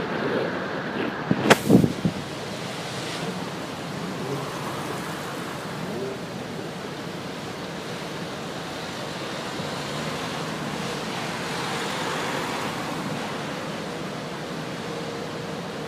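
Steady rushing noise of heavy storm surf breaking against a harbour wall, mixed with wind. A few loud sharp bumps about a second and a half in.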